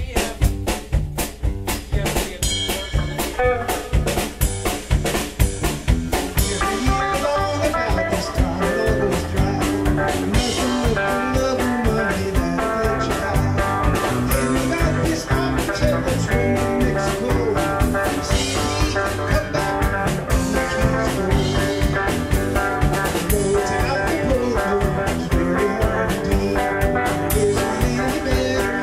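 A live band jamming, with a drum kit keeping a steady beat under electric guitars.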